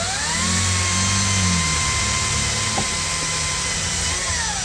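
Electric circular saw spinning up to speed, running with a steady high whine and hiss, then winding down near the end.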